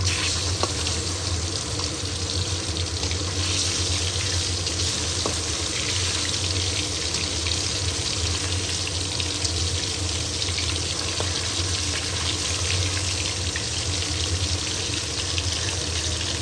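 Turmeric-coated mullet pieces frying in hot oil in an aluminium kadai: a steady, dense sizzle with a few small pops.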